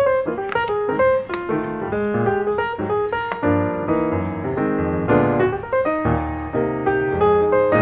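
Background instrumental music: a continuous, quick run of short notes.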